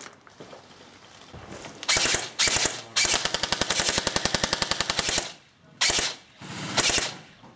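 Airsoft rifle firing on full auto: two short bursts, a long burst of about two seconds at roughly fifteen shots a second, then two more short bursts.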